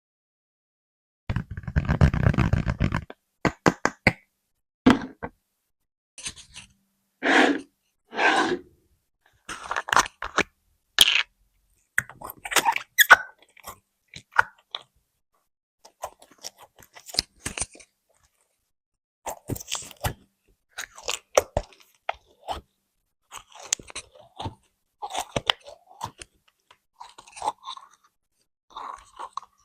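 Slime being squished and pressed in ASMR style, giving a string of crunchy, crackling bursts separated by silent gaps. The longest and fullest burst comes about a second in.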